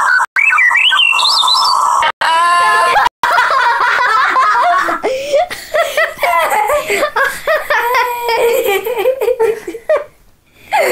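People laughing hard, with high-pitched giggling in quick repeated pulses that break off about ten seconds in. It opens with a short squeal that rises in pitch.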